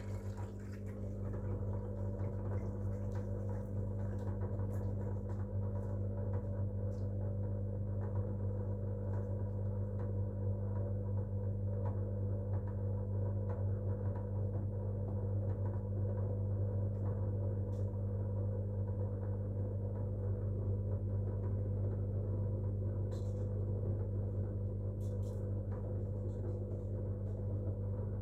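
Whirlpool FL 5065 washing machine's drain pump running, a steady hum as it pumps the water out of the drum.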